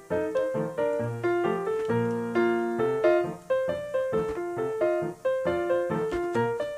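Background piano music: a steady run of single notes and chords at a lively pace.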